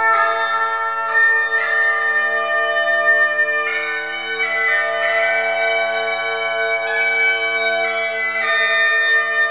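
Bagpipe music: a slow melody played over steady, unbroken drones.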